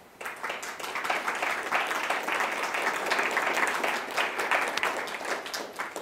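Audience applauding, breaking out a moment in.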